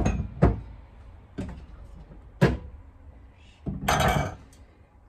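Large glass storage jars being handled and set down on a kitchen countertop: four sharp knocks of glass on the counter, then a short scraping noise about four seconds in.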